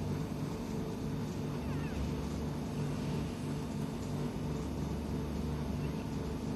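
A person snoring heavily, a low rough snore likened to a pig's, with one long drawn snore from about two seconds in to past four seconds.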